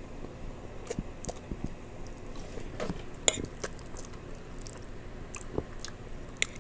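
Close-miked eating sounds: chewing and mouth smacks of a mouthful of chicken alfredo, with short scattered clicks that sound like utensils against dishes.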